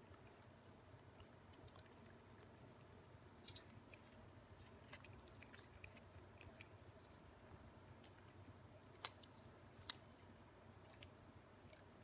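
Faint, wet clicking of Ragdoll cats licking puree treat from a squeezed CIAO Churu tube, small tongue clicks coming irregularly, with two sharper clicks a second apart late on.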